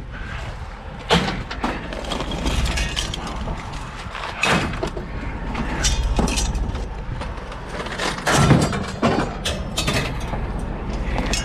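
Scrap metal being handled and loaded onto a pickup truck and trailer: a string of irregular clanks, knocks and clatters, the loudest about eight seconds in, over a steady low rumble.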